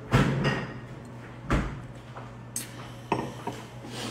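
A few short knocks and clicks, the first two the loudest, over a steady low hum.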